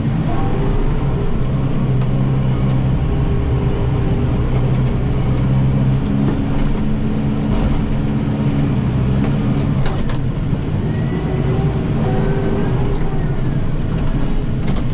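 Kubota M7060 tractor's diesel engine running steadily, its note shifting about six seconds in and settling back a few seconds later, with a few sharp ticks around ten seconds in.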